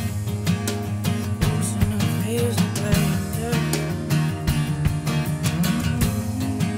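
Background music: a guitar song with a steady beat, in a stretch without singing.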